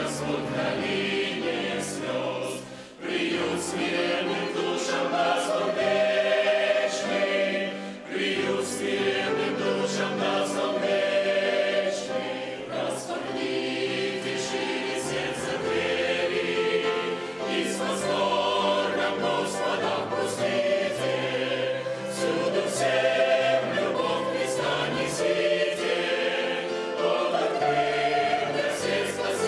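Mixed church choir of women's and men's voices singing a hymn in Russian, the phrases broken by brief breaths about three and eight seconds in.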